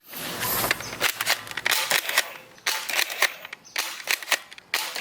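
Toy gel blaster gun being worked, making a series of sharp, irregular clicks and pops.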